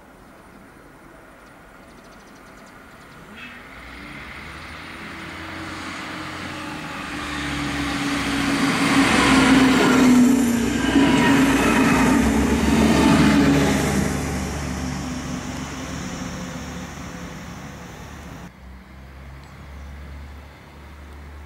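Two coupled class 641 diesel railcars approach, pass close by at speed and draw away. The engine and wheel noise swells to a peak about halfway through, and the engine note drops in pitch as they go by. Near the end it cuts abruptly to a quieter low diesel hum.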